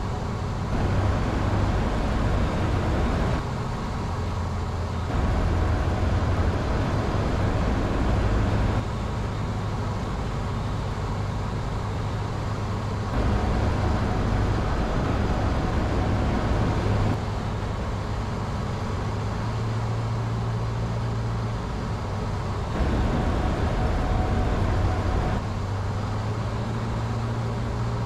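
Cessna 150's Continental O-200 four-cylinder engine and propeller droning steadily, heard from inside the cockpit. Rushing air noise grows louder and fades back in abrupt stretches of a few seconds each, several times.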